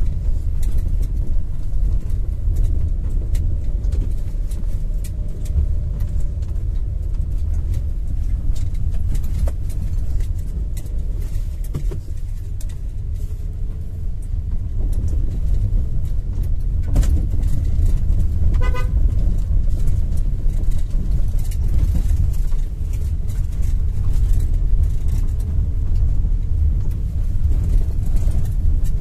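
Maruti Suzuki Alto driving over a rough, wet road, heard from inside the cabin: a steady low rumble of tyres and engine with scattered light knocks, on suspension with a newly replaced lower arm, steering rack and bushes. A car horn toots briefly about two-thirds of the way through.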